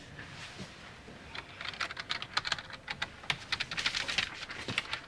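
Typing on a computer keyboard: rapid, irregular key clicks that start about a second and a half in.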